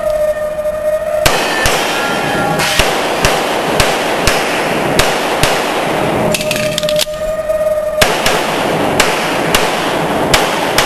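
Handgun shots fired indoors, about two a second, in two strings with a break of a second or two in the middle, each crack ringing on in the range.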